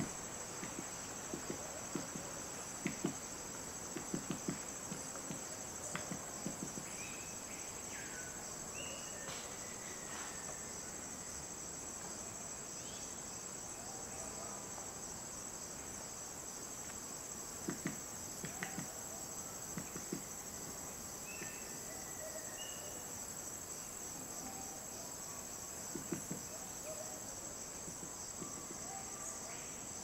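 Red-necked woodpecker pecking and chiselling at a tree trunk, knocking in short irregular clusters, several times. A steady high-pitched insect drone runs underneath.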